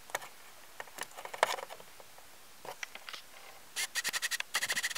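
Small sharp clicks and taps of a plastic blade fuse being handled and fitted into the dash fuse panel, with a quick run of rapid rattling clicks near the end.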